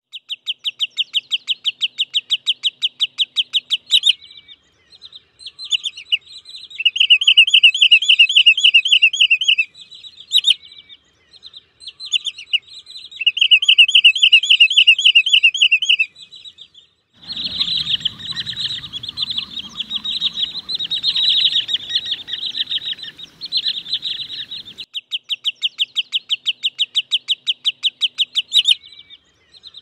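Wood sandpiper calling: fast runs of sharp, high notes, about six a second, alternating with trilled series of rising notes. In the middle stretch the calls become denser over a low rumbling background noise.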